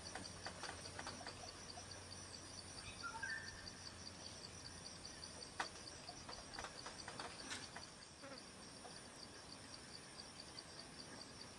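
Faint forest ambience: a steady, evenly pulsing high-pitched insect drone, with scattered short bird chirps and a few sharp clicks.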